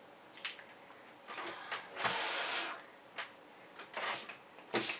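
Handling noises from small plastic toy pieces and bowls: scattered clicks and rustles, with a louder rustle lasting under a second about two seconds in.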